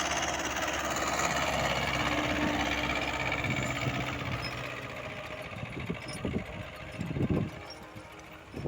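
An engine running steadily, growing fainter over the second half, with a few dull low thumps near the end.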